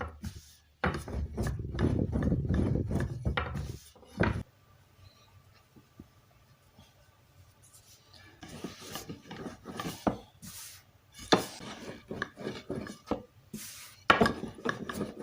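Dough being worked on a wooden board: dense rubbing strokes for about four seconds, then scattered light knocks and taps, with another brief burst of rubbing near the end.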